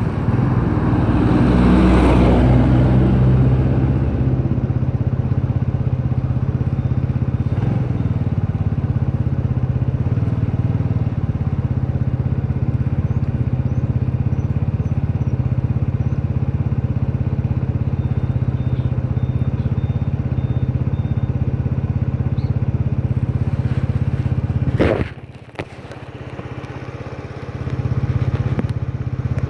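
Motor scooter engine idling steadily while stopped, with a louder swell of noise about two seconds in; the sound drops off abruptly near the end.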